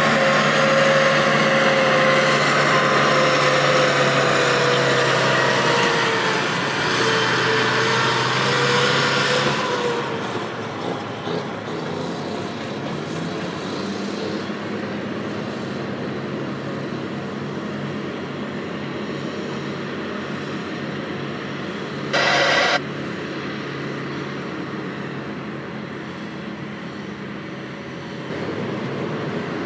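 Terex TS-14B twin-engine scraper's two-stroke Detroit Diesel 4-71 engines running hard as it passes close by, the engine pitch dropping about six seconds in. After about ten seconds the engine sound is quieter and steady as the scrapers work farther off. A short high beep sounds about two-thirds of the way through.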